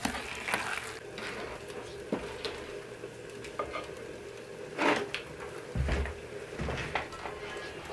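Wooden spoon stirring and scraping a thick batter in a glazed earthenware bowl, a run of short scrapes and knocks with one louder one about five seconds in. A few low thuds follow near the end.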